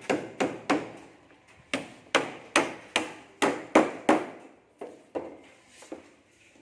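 Hammer blows driving nails into wood: a run of sharp strikes at about two to three a second, with a brief pause about a second in and a gap near the end.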